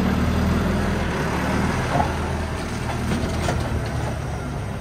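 John Deere tractor's diesel engine running steadily as it drives close past with a Teagle Tomahawk straw blower in tow, slowly growing quieter as it moves off. A few light knocks from the machine are heard along the way.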